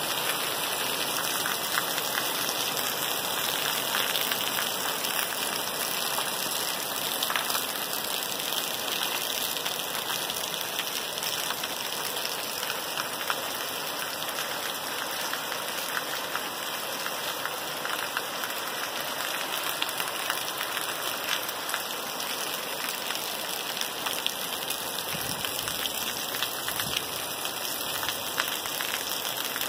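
Heavy tropical downpour falling on a water-covered paved street, a steady dense hiss dotted with many small sharp drop hits.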